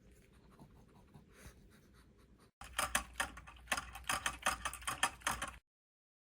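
A small dog's mouth at work: rapid wet clicks and smacks of licking and lapping, faint at first and much louder and quicker from about two and a half seconds in, stopping abruptly near the end.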